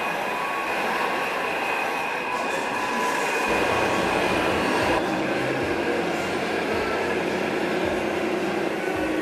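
Radio-controlled model trucks running, their electronic sound modules playing diesel engine sound over a steady hall din. About three and a half seconds in, a deeper engine rumble comes in and wavers as a truck's engine sound rises and falls.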